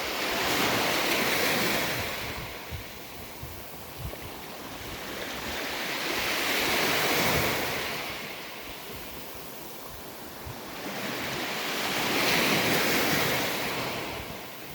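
Sea waves breaking and washing up on a beach, the surf swelling and fading three times about every six seconds.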